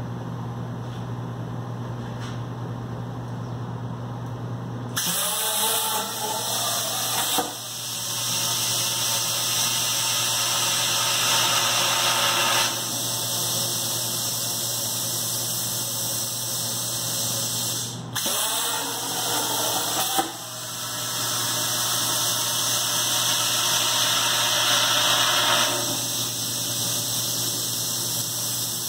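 Plasma cutting torch on a Wright CNC plasma table cutting holes in 4x2 steel tube. A steady hum gives way about five seconds in to a loud, even hiss as the arc starts. The hiss cuts out briefly a few times as the torch moves between holes.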